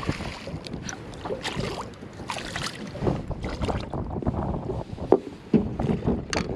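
A small hooked fish splashing and thrashing at the surface beside a fiberglass skiff, then irregular knocks and rattles as it is lifted aboard by hand, with one sharp knock about five seconds in.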